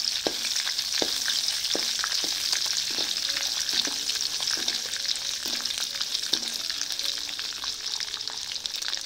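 Dried red chillies, garlic, ginger and urad dal sizzling in hot oil in a metal kadai. A metal ladle strikes and scrapes the pan about once every 0.7 s while stirring; the strokes thin out after about six seconds and the sizzling goes on steadily.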